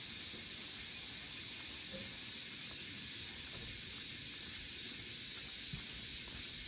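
Chorus of cicadas singing in summer: a steady high buzz with a faint pulse about three times a second.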